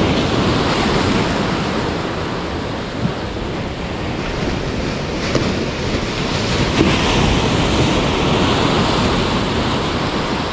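Ocean surf washing up the shore, with wind buffeting the microphone; the wash swells louder past the middle, and a few light knocks sound over it.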